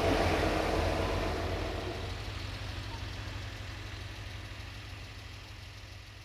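Diesel locomotive engine running with a steady low rumble, fading out gradually.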